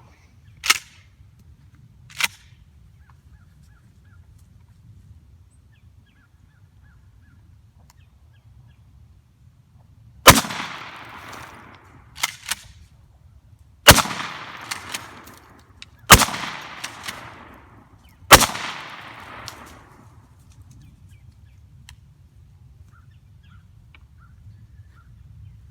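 Four 12-gauge shotgun blasts from a Maverick 88 pump shotgun firing 000 buckshot, spaced about two to three and a half seconds apart, each ringing out briefly after the report. Two small sharp clicks come a few seconds before the shooting, and a lighter knock falls between the first and second shots.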